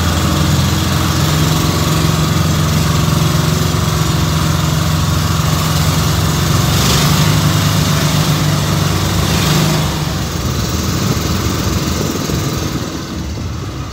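Boat engine running at a steady speed with a low hum, over a constant rushing noise; the hum drops away about ten seconds in.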